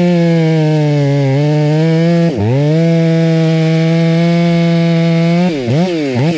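Stihl MS 500i fuel-injected two-stroke chainsaw held at full throttle while cutting down into a stump, its square-ground semi-skip chain throwing chips. The revs sag slightly under load, drop sharply and briefly about two and a half seconds in, then from about five and a half seconds in rise and fall quickly as the throttle is blipped.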